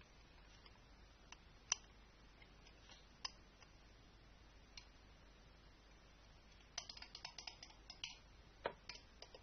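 Near silence broken by a few sharp, isolated clicks, then a quick run of small clicks and taps in the last couple of seconds.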